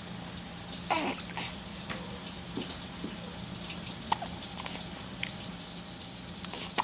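Hiccups: short, sudden, voiced 'hic' sounds that come about every three seconds, three times, over a steady background hiss.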